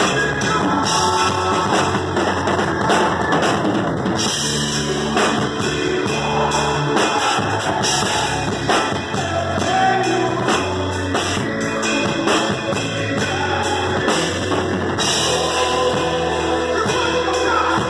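Drum kit played close up in a live band performance of an upbeat gospel worship song: a steady beat with fills and cymbal crashes over guitar and bass.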